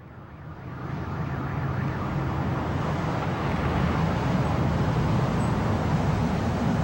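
A steady, dense rumble of background noise that fades in over the first second or two and then holds level.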